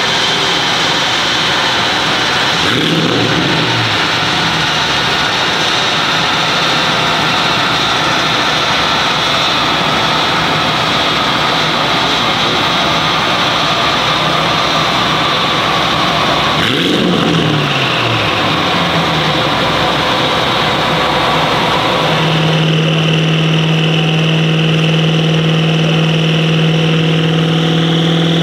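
Tuned Audi RS6 C8's 4.0-litre twin-turbo V8 running hard on a chassis dyno, revs climbing slowly during a dyno pull. Its pitch drops sharply about three seconds in and again around seventeen seconds in. For the last several seconds it settles to a steady, even drone.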